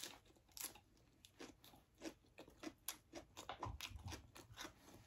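Faint, irregular crunching and chewing of salted ba khía crab, its shell cracking between the teeth close to the microphone.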